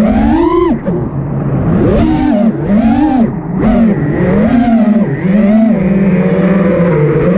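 Brushless motors and 5-inch props of an Armattan Rooster FPV racing quad whining, heard from the camera on board. The pitch swells and drops with each throttle punch, about once a second, then holds steadier near the end.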